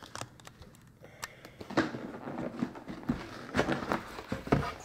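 Rustling and light irregular taps and clicks of printed booklets and cardboard being handled.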